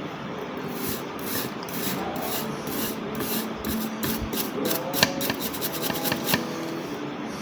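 Soft brush scrubbing corrosion off a phone's circuit board with thinner, in short repeated strokes that come quicker past the middle.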